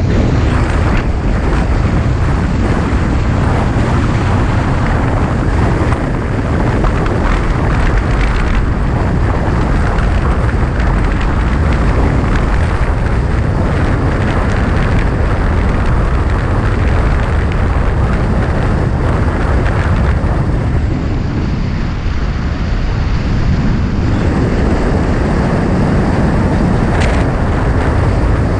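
Car driving along a road, heard as a loud, steady rumble of wind buffeting the microphone mixed with tyre and road noise.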